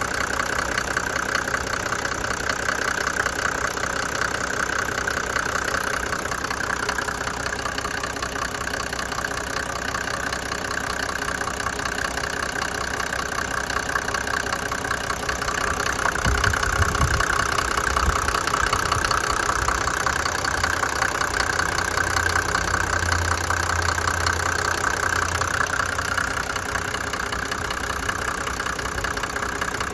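1991 Mercedes-Benz 350SD's 3.5-litre turbodiesel straight-six idling with an even diesel knock and no misfire, now that its broken camshaft has been replaced. A little past halfway it grows slightly louder, with a deeper hum.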